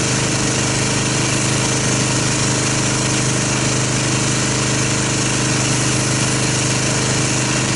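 Pressure washer running steadily as it rinses a car: a constant motor hum with the hiss of the water spray hitting the bodywork.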